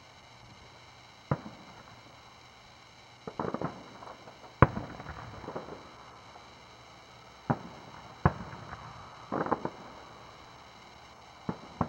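Aerial firework shells bursting. There are four sharp single bangs, the loudest a little under five seconds in, and two quick runs of rapid pops, one around three and a half seconds in and one around nine and a half seconds in.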